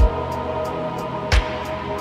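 Background music: sustained chords with a deep drum beat about every second and a third and light high ticks between the beats.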